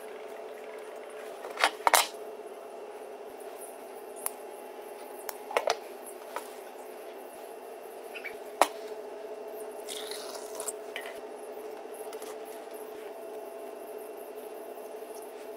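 Small handling noises of metal razor blades and wires: a few sharp clicks, the loudest about two seconds in, and a brief scrape about ten seconds in, over a steady hum.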